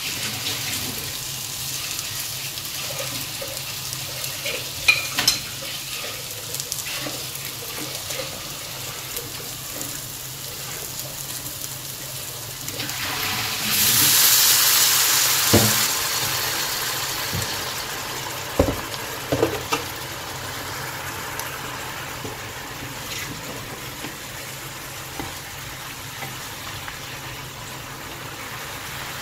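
Green banana pieces and onions frying in a hot non-stick pan, a steady sizzle with a few sharp spatula clicks. About fourteen seconds in, water is poured into the pan and it sizzles loudly, fading over several seconds into a quieter simmer as a spatula knocks against the pan a few times.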